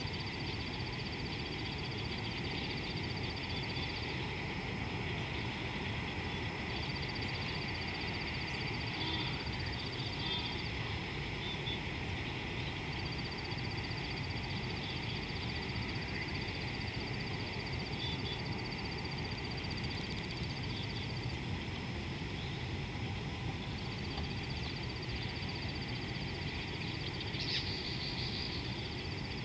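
Outdoor ambience beside a muddy river: a steady low rush with a high, rapidly pulsed trill that runs in long stretches and breaks off several times, plus a few faint chirps.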